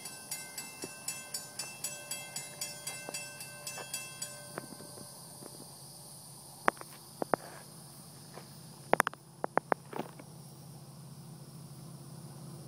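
Railroad grade-crossing warning bell ringing in rapid, evenly spaced strokes while the crossing gates lower, falling silent about four and a half seconds in once the gates are down. A handful of sharp clicks follow over a faint steady insect buzz.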